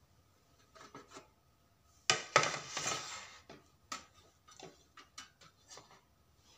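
Stainless steel box grater clattering against a ceramic plate as it is handled and set down: a loud rattle about two seconds in, lasting a little over a second, then a string of lighter, uneven taps and knocks.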